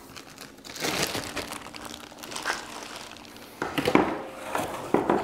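Plastic packaging crinkling and cardboard being handled during an unboxing: irregular rustling, with sharper crackles about four and five seconds in as a small cardboard box is opened.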